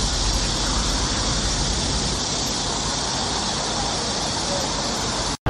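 Steady outdoor background noise: a low traffic rumble under a constant high hiss, with no distinct events.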